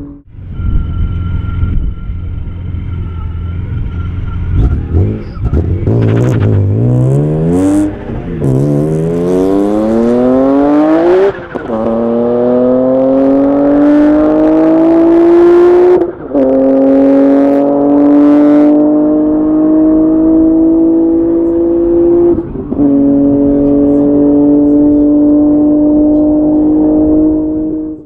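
Supercharged BMW M3 E46's straight-six accelerating hard through the gears. After a few seconds of low rumble, the engine note climbs steadily in each gear, with a brief drop at each upshift, four in all.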